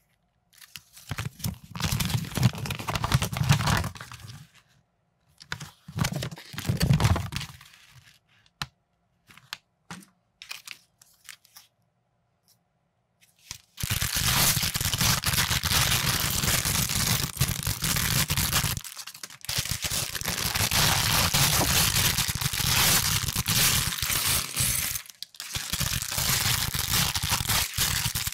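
Clear plastic bags of toy brick pieces crinkling and tearing as they are handled and pulled open: short bursts for the first few seconds, then continuous crinkling from about halfway through.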